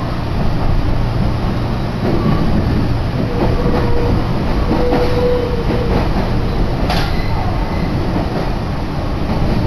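Inside a moving Meitetsu electric commuter train: the steady low rumble of the wheels and running gear, with a faint steady tone coming and going a few seconds in and one sharp click about seven seconds in.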